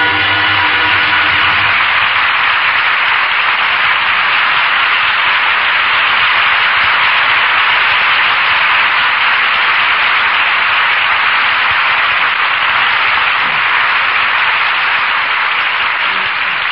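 Studio audience applauding steadily and loudly. The closing music ends about two seconds in, and the applause carries on alone.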